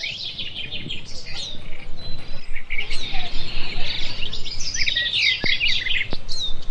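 Many birds chirping and twittering at once in a dense, continuous chorus, growing fuller and louder after the first couple of seconds.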